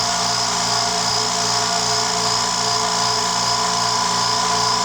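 California Air Tools quiet air compressor running steadily as it fills its tank: an even motor hum with a steady whine over it. The tank is nearing its cut-out pressure.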